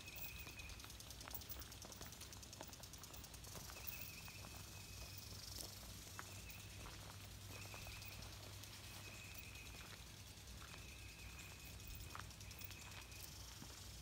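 Quiet rural outdoor background. A faint high, steady drone comes and goes about six times, with scattered light clicks and a low rumble underneath.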